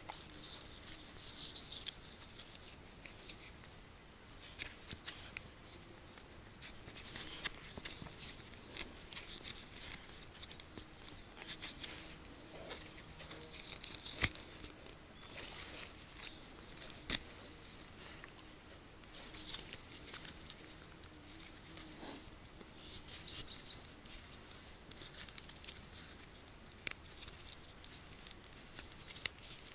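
Faint rustling and small metallic clicks and clinks of a spiked leather dog collar being handled and buckled onto a dog, irregular throughout, with one louder sharp click a little past halfway.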